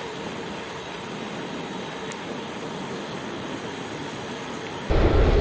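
Steady hiss of a bicycle being ridden: tyre rolling noise and wind on an action camera. Near the end it cuts abruptly to a louder, deeper wind rumble.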